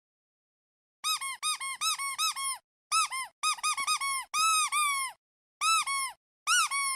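Rubber duck squeeze toy squeaking, starting about a second in: quick runs of short squeaks, each rising and falling in pitch, mixed with a few longer held squeaks.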